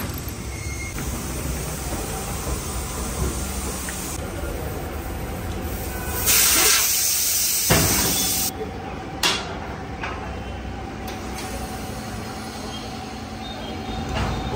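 Tyre-shop compressed air: a loud hiss of about two seconds starting about six seconds in, followed by a couple of sharp clicks, over steady workshop noise.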